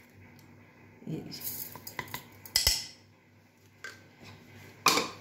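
A spoon clinking and scraping against containers as sugar is spooned in: a handful of light, scattered taps, the loudest about two and a half seconds in and just before the end.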